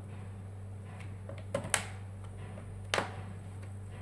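Three sharp clicks, two in quick succession in the middle and one about a second later, as a flathead screwdriver pries at the edge of a Samsung Galaxy Tab 2 10.1's glass touch panel. A steady low hum runs underneath.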